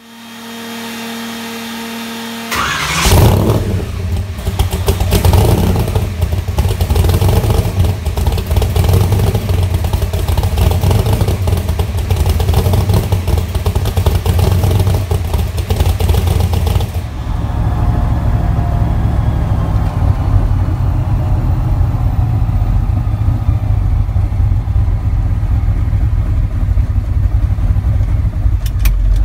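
Supercharged Hemi V8 of a 1979 Ford F-350: the starter whines for about two and a half seconds, then the engine fires with a sharp crack and runs loud and deep. About halfway through, the same engine is heard from inside the cab, running steadily.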